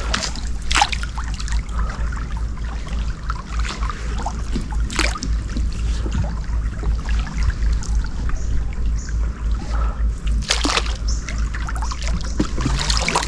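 Water trickling and sloshing over a steady low rumble, with three short splashes: about a second in, around five seconds in, and around ten and a half seconds in.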